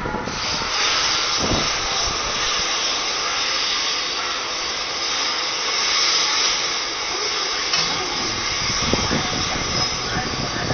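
Steady hiss of rushing air from a drop tower ride as its seat carriage comes down the tower to the base.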